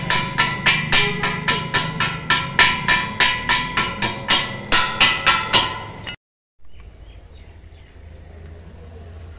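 Chipping hammer knocking slag off a fresh arc weld on a square steel tube joint: rapid ringing metallic strikes, about three a second. They stop abruptly about six seconds in, leaving a faint low hum.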